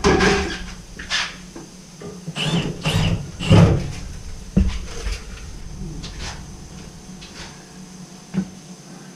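Scattered knocks and clunks of handling, over the steady low hum of a Navien tankless water heater running with its cover off. The hum drops away near the end.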